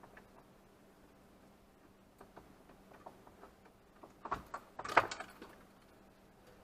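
Plastic filament spool being handled and seated on its spool holder: scattered light clicks, then a cluster of louder knocks and rattles about four to five seconds in.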